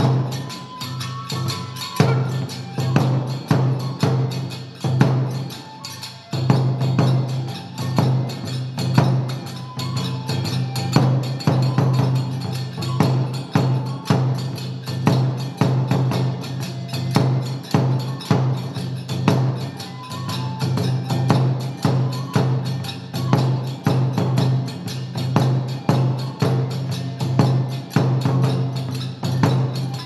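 Kagura music for a gongen-mai lion dance: a drum beaten in a fast, steady rhythm with many sharp wooden clacks, and a few short held flute notes over it.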